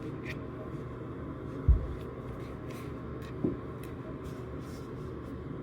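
A dull thump about a second and a half in and a lighter knock about two seconds later, over a steady low hum.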